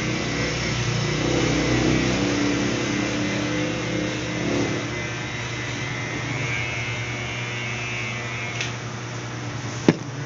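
Electric hair clippers buzzing steadily as they cut hair, with one sharp click near the end.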